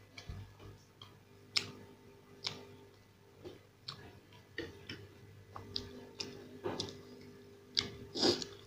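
Close-up eating sounds of a person eating masala dosa with sambar: irregular sharp mouth smacks and clicks while chewing, with a spoon dipping into a ceramic bowl of sambar.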